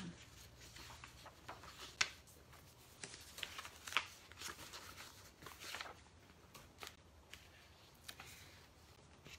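Paper pages in a ring binder being turned and handled: irregular rustles and crackles with a few sharper clicks, the loudest about two and four seconds in.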